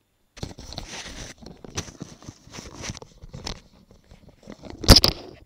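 Rustling, scraping handling noise with scattered clicks as a pair of headphones is adjusted on the head, with one loud knock near the end.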